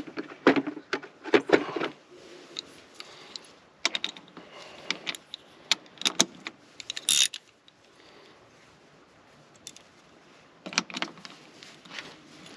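Metal hand tools clinking and clattering as sockets are handled, with a quiet stretch in the middle.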